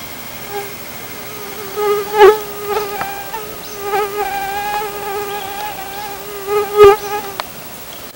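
Mosquito buzzing close to the microphone: a steady, slightly wavering high hum that swells loud twice as it flies past, about two seconds in and again near the end.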